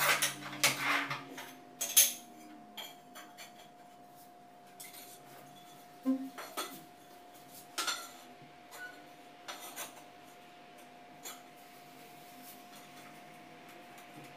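Manual tile cutter and ceramic tiles being handled: a quick run of hard clacks and knocks in the first two seconds, the loudest about two seconds in, then scattered lighter knocks and clinks of tile on tile and on the floor.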